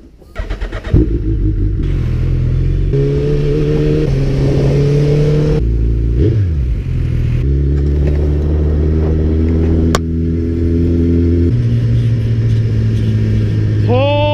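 Suzuki Hayabusa's inline-four engine running under way, its note holding steady for a few seconds at a time and then stepping to a new pitch as the bike changes speed and gear. Around the middle a short drop and rise in pitch.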